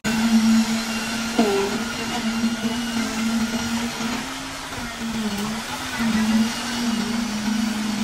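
A small motor running with a steady high hum that sags briefly a few times, with one short squeak about a second and a half in.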